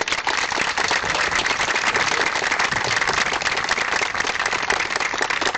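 Crowd applauding, many people clapping at once.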